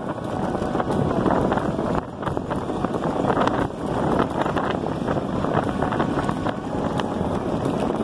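Wind buffeting the microphone over steady tyre rumble, with frequent knocks and rattles, as an electric bike rides over a rough, cracked road.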